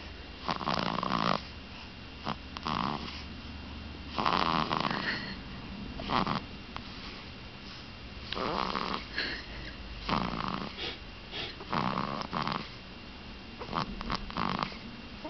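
One-month-old baby snoring in sleep: a short, noisy snore on each breath, repeating irregularly every one to two seconds.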